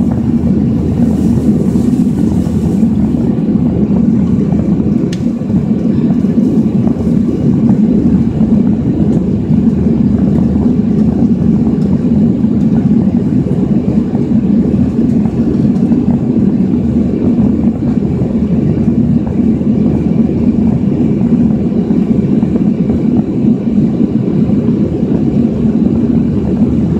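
Steady low rumble of jet engines and rushing air heard inside an airliner cabin during the climb after takeoff.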